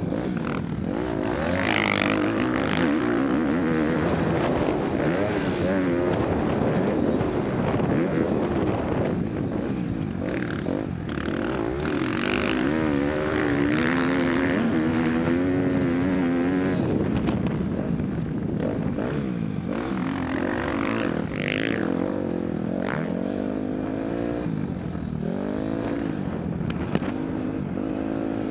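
An engine running throughout, its pitch wavering up and down.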